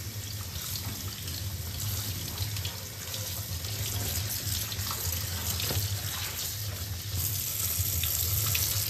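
Kitchen tap running in a steady stream onto Malabar spinach leaves in a bamboo basket held over a steel sink, the water splashing through the leaves as they are washed.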